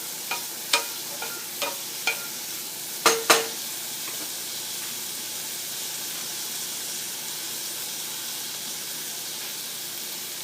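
Sliced bitter gourd frying in oil in a pan, sizzling steadily, while it is stirred: a utensil knocks against the pan about seven times in the first few seconds, the last two knocks the loudest, then only the sizzle goes on.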